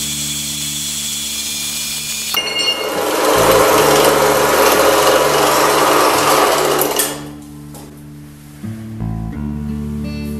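Background music at first. About two seconds in, a loud, steady machine noise from a horizontal metal-cutting band saw takes over and fades out around seven seconds. Faint music returns near the end.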